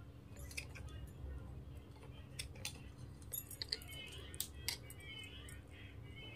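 Faint handling sounds of stiff plastic wire strips: scissors snipping and a strip scraping as it is pushed through the woven plastic bag, with scattered light clicks and metal bangles clinking.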